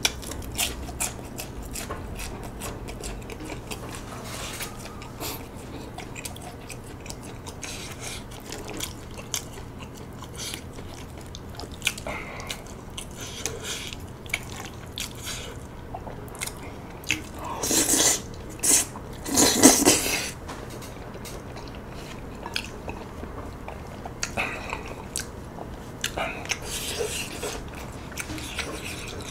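Close-miked chewing and biting of chewy tteokbokki rice cakes in a thick spicy sauce, with many small wet mouth clicks. Two louder noisy bursts come a little past the middle.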